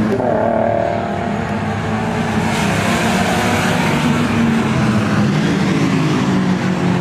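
Toyota AE86 Corolla's 4A-GE twin-cam four-cylinder engine running hard at high revs as the car laps the track, with a steady engine note and a hiss of wind and tyre noise that swells about two and a half seconds in.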